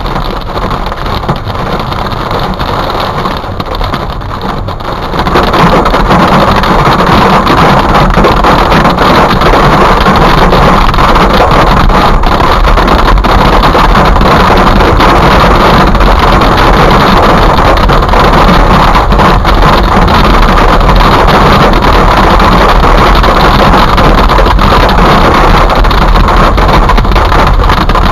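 Hail and heavy rain pelting a car's roof and windshield, heard from inside the cabin as a loud, dense drumming that gets louder about five seconds in.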